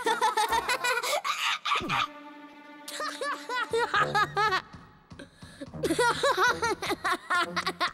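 Cartoon characters laughing hard in repeated bouts of rapid giggling, over light background music.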